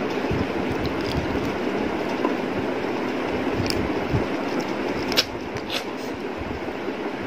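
Steady rushing background noise, with a few light clicks about halfway through and near the end from fingers mixing and picking up rice from a plate while eating by hand.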